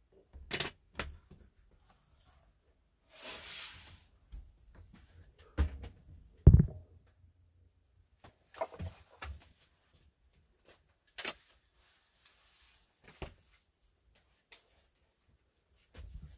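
Desk-top handling sounds: paper pattern pieces and a fabric quilt block being moved about on a cutting mat. Scattered light clicks and knocks, a short paper rustle, and two dull thumps midway, the second the loudest.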